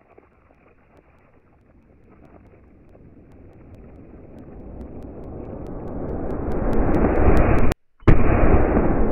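A black-powder revolver shot slowed down into a low rumble. It swells steadily for several seconds, breaks off abruptly for a moment just before eight seconds in, then comes back loud and slowly fades.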